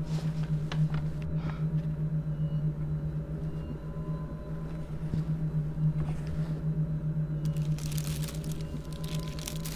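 A steady low hum. Near the end, crinkling handling noise starts as something crisp is moved about.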